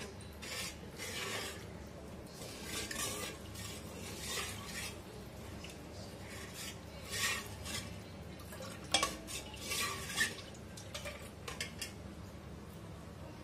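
Steel spoon stirring milk in a metal pot, scraping and clinking against the sides in irregular strokes, with a couple of sharper clinks near the end. The stirring mixes yogurt starter into warm milk and breaks up the cream.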